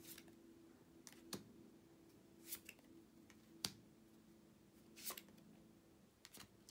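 Near silence with about six brief soft clicks and brushes of tarot cards being handled, over a faint steady low hum.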